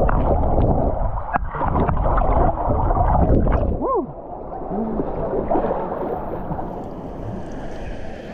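Water rushing and a rider sliding through an enclosed waterslide tube, a heavy rumble that drops off about four seconds in, followed by quieter splashing noise. A short pitched sound rises and falls once just as the rumble ends.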